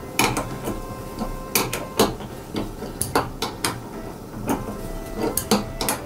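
Electrical cables and small plastic parts being handled by hand, making irregular sharp clicks and light knocks.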